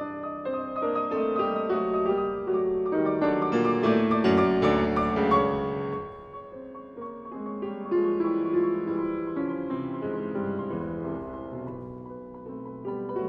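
Steinway & Sons grand piano played solo in a classical piece: a loud, full passage in the first half softens about six seconds in, swells again a couple of seconds later, then tapers off.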